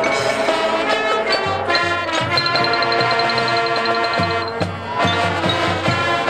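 Marching band playing with brass and drums, a steady low drum pulse under sustained brass chords.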